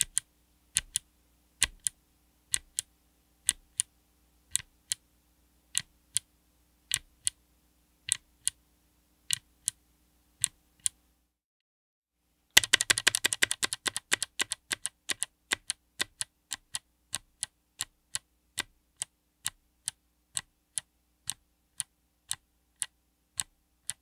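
A Kailh Crackle Ice Box clicky switch with a POM housing, mounted on an FR4 plate, pressed and released one key at a time. Each press gives a sharp click. The first half is the bare switch without a keycap, pressed about once a second. After a short silence it goes on with a keycap fitted, starting with a quick burst of clicks and then settling into a steady run of clicks about twice a second.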